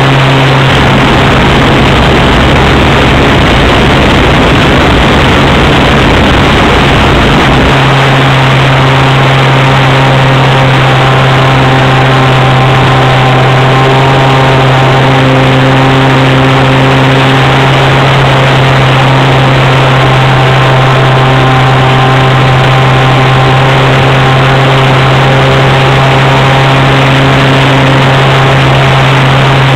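The .46 nitro engine of a Swift 40 RC plane runs steadily at an unchanging pitch in flight, heard from a camera on the wing, over dense wind rush. An extra low rumble stops about eight seconds in.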